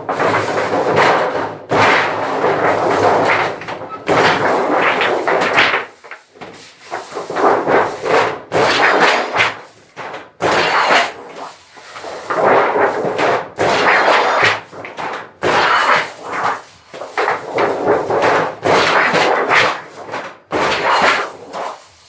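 Sheet metal being worked on a tinsmith's machine: a string of irregular banging, clattering bursts, each about a second long with short pauses between.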